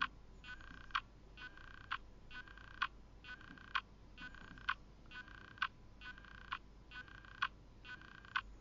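Faint, very regular ticking, a little under one beat a second. Each beat is a sharp click followed by a short buzzing tone.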